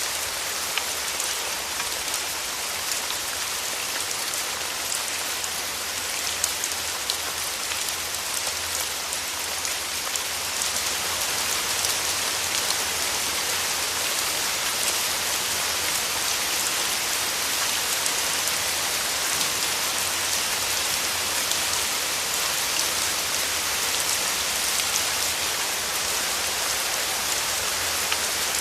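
Steady rain falling, a dense even hiss with scattered drop ticks, growing slightly heavier about a third of the way in.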